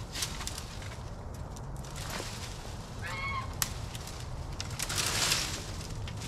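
A chicken gives one short squawk about halfway through. Footsteps rustle on dry leaves and brush, loudest near the end.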